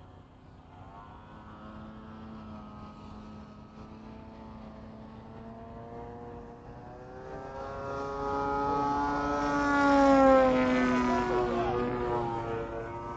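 Small FPV racing quadcopters' propellers and motors whining as they fly past, growing louder to a peak about ten seconds in, then fading.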